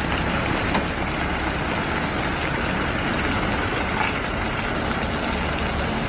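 Heavy wrecker tow truck's diesel engine running steadily while it tows a lorry with its front end lifted.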